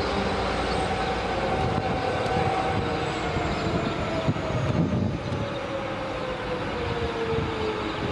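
V/Line diesel locomotive approaching, its engine note slowly falling in pitch over a steady rumble of the train.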